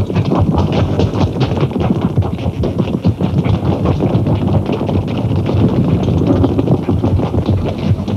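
Tap dancing in work boots fitted with taps, fast clattering heel-and-toe strikes on a metal stage floor, with music underneath.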